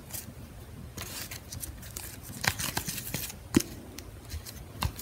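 Paintbrush handle clicking and scraping against a clear plastic cup while working a string through wet acrylic paint: scattered light taps, with one sharper click past the middle.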